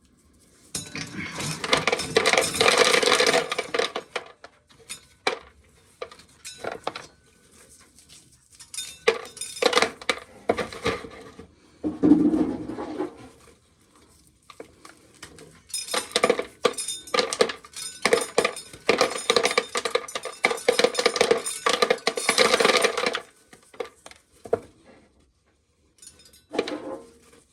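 Dry shelled corn kernels being scooped and poured into a plastic bucket, a dense rattle of kernels in several runs of a few seconds each, with scattered clicks and a duller scrape between them.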